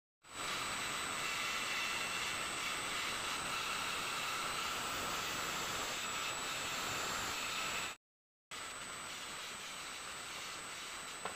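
Electric angle grinder with an abrasive disc grinding the steel blade of a kukri knife: a steady motor whine over the hiss of the disc on steel. The sound drops out briefly twice, at the start and about eight seconds in, and runs on a little quieter after the second gap.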